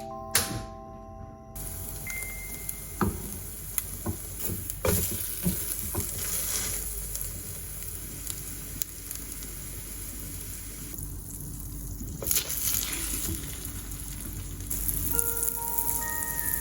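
French toast sizzling as it fries in a pan, with a few sharp taps, over background music.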